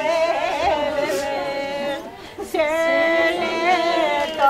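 Unaccompanied female singing in long, wavering held notes, with a short breath pause about two seconds in.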